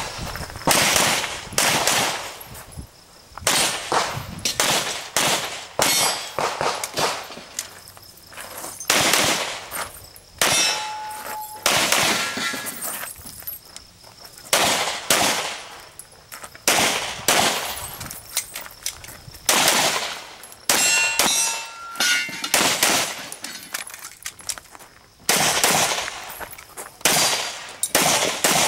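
A pistol fired in quick pairs and short strings during a practical shooting stage, with pauses between groups as the shooter moves. Several shots are followed by the short ringing of steel targets being hit.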